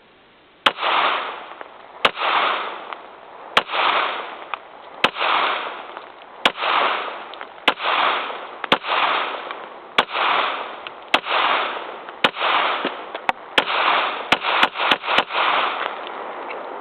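Glock 17 9mm pistol firing single shots, about one every second and a half, each crack followed by a long echo; the shots come quicker in a rapid string over the last few seconds.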